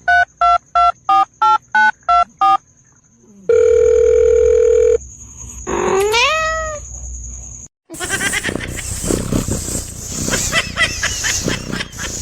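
Telephone keypad tones beeping through about ten dialled digits, then a steady phone tone for about a second and a half, then a single meow that rises and falls in pitch. From about eight seconds in, a busy jumble of noise takes over.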